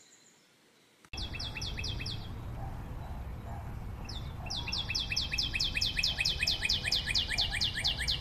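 Bird chirps, quick downward-sweeping notes in fast runs: a short run starting abruptly about a second in, then after a pause a long even series of about four chirps a second, over a low rumble.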